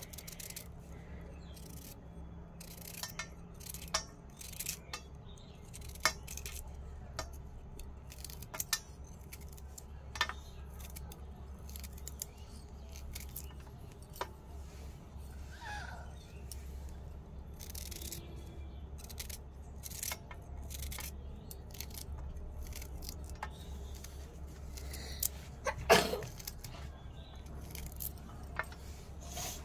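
Small knife cutting ivy gourds held in the hand, irregular clicks and taps of the blade with slices dropping into a steel plate, and one louder knock late on.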